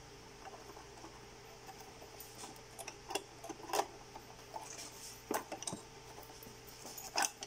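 Plastic cable connectors and circuit boards inside an SLE 5000 infant ventilator clicking and knocking as they are pressed together by hand: a handful of sharp clicks, the loudest about four seconds in and another near the end, over a faint steady hum.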